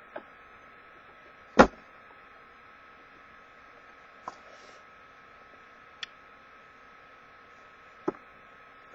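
Hands handling a cardboard box and the camera: one sharp click about a second and a half in, then three faint ticks spread through the rest, over a faint steady hiss and hum.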